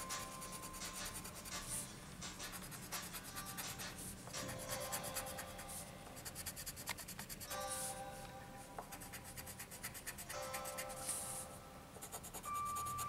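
Coloured pencil scratching on paper in rapid back-and-forth shading strokes. Soft background music comes and goes.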